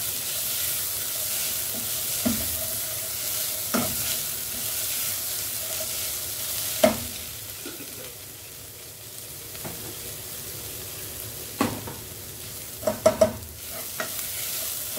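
Fenugreek leaves and onion sizzling in a nonstick pot as they are stirred with a ladle. The ladle scrapes and knocks against the pan now and then, sharpest about seven seconds in, with a quick run of knocks near the end.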